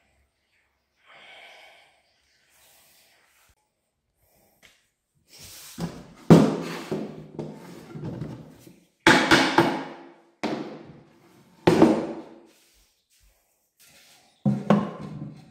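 Plywood panels knocking and clattering against each other and the workbench as they are handled and fitted into a box. After a quiet start there are about five hollow knocks, each ringing briefly.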